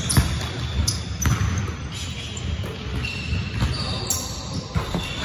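Basketball bouncing on a hardwood gym floor, with a few sharp knocks and short sneaker squeaks between them, echoing in the large hall.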